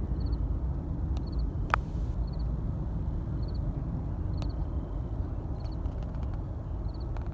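Distant low rumble of a jet airliner climbing out after takeoff. A faint short high chirp repeats about once a second, and there is one sharp click a little under two seconds in.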